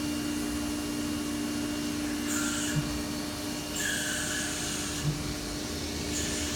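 CNC milling machine on an automatic run, drilling holes in a blank: a steady spindle hum, with short bursts of hiss about two and four seconds in and a couple of light knocks.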